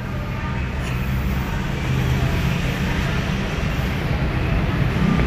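Steady noise of road traffic, passing vehicles blending into one continuous hum.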